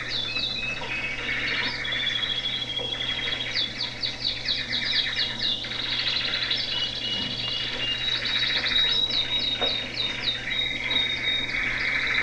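Caged canaries singing: fast rolling trills and runs of rapid repeated chirps, with a few short held whistled notes, over a low steady hum.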